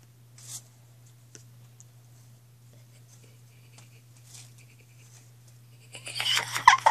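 Faint rustling and light clicks of things being handled, over a steady low hum. Near the end comes a loud burst of voice and a single thump.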